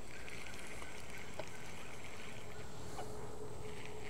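Steady low rumble of outdoor background noise with a faint steady hum and a couple of light ticks.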